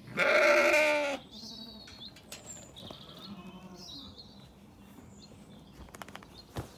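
A Zwartbles sheep bleats once, loud and wavering, for about a second. Faint bird chirps follow, and a single soft thump comes near the end.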